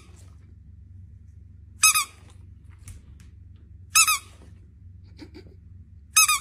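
Squeaky dog toy squeezed three times, one short high squeak about every two seconds.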